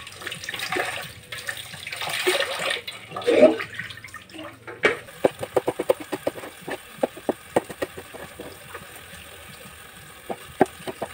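Tap water running over winged beans as they are rubbed clean by hand. After an abrupt cut, a kitchen knife chops them on a wooden cutting board in quick, regular strokes, about four a second, pausing for a couple of seconds before resuming near the end.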